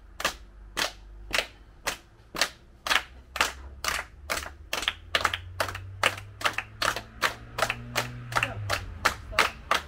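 A group of children clapping together in a steady beat, about two claps a second, quickening to about three a second in the second half.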